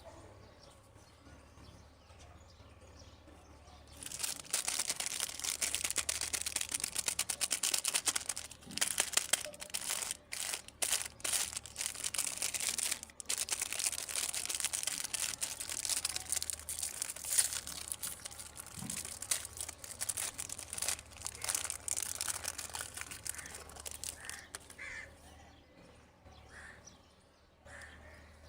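Plastic candy packaging crinkling and crackling as it is handled and opened: a dense run of rapid crackles that starts about four seconds in and dies away near the end.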